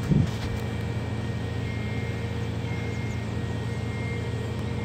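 Steady mechanical hum with several held tones, with a brief low thump right at the start.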